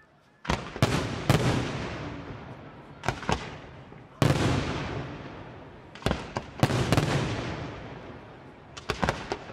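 Senatore Fireworks aerial shells bursting: about ten sharp bangs, mostly in pairs or threes a couple of seconds apart, each followed by a long rolling echo that fades away. The first bang comes about half a second in.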